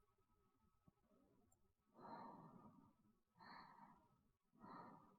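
Faint human breathing: three soft breaths about a second apart, starting about two seconds in, over near silence.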